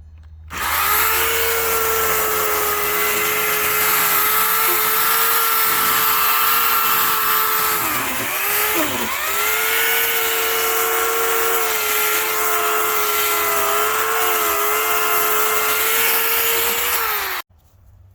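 Oregon CS1400 15-amp corded electric chainsaw running with a steady high whine. Its pitch dips briefly about halfway through, then it stops suddenly.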